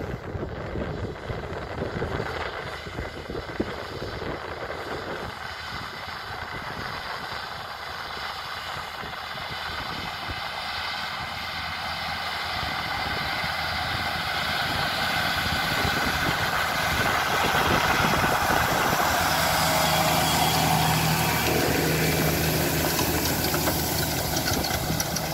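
John Deere 8R370 tractor's six-cylinder diesel running steadily under load while pulling a Köckerling Rebell cultivator through stubble, with the rushing of discs, tines and roller working the soil. The sound grows steadily louder as the rig approaches, peaking past the middle.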